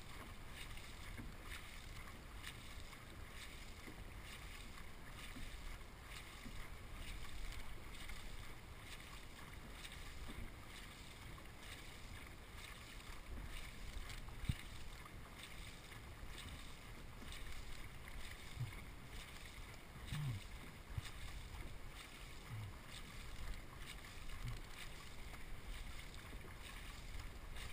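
Faint sound of a dragon boat crew's paddles catching the water together in a steady stroke rhythm, over a low wind rumble on the microphone.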